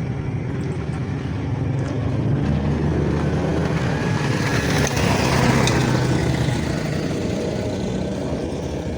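Road traffic: a steady motor-vehicle engine drone, with a vehicle passing that is loudest about five seconds in and then fades.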